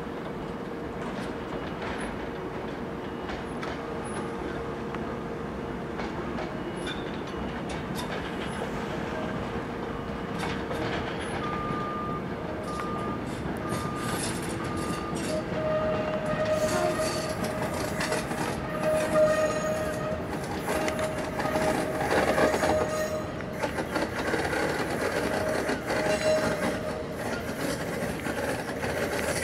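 Battery-electric shunting locomotive and flat wagons rolling slowly over yard track, a rumble with clicks and clanks that grows louder as they draw near. In the second half a high tone comes and goes over the running noise.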